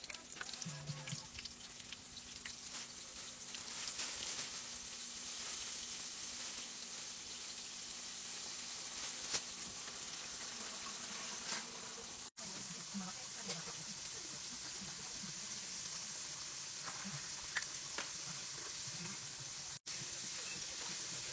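Floured pork chops frying in hot oil in a skillet: a steady sizzle with small crackling pops, growing louder over the first few seconds. The sound cuts out for an instant twice.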